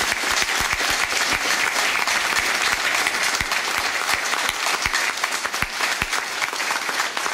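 An audience applauding steadily: the dense, even clatter of many hands clapping.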